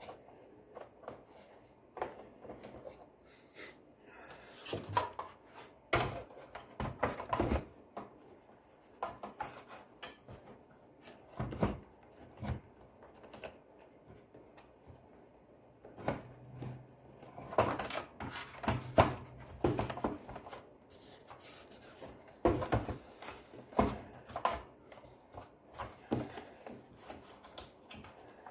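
Hard parts being handled by hand, with irregular knocks, clicks and short scrapes, in scattered clusters rather than any steady running sound.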